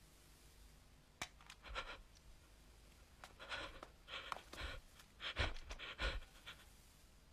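A person breathing hard in short, ragged gasps, about five or six breaths with low thuds under some of them. A single sharp click comes about a second in.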